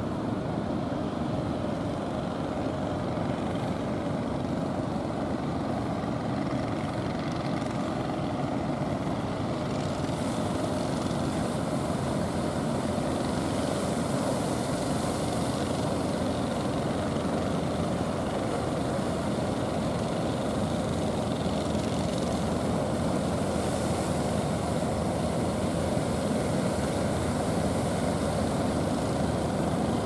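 Heavy engines of wooden fishing boats running hard as they drive out through the surf, a steady low drone. A rushing hiss of breaking waves and wash grows about ten seconds in.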